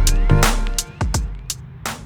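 Electronic background music: a synth line rising in pitch over a heavy bass with drum hits, the bass dropping away about halfway through, leaving a few sharp hits.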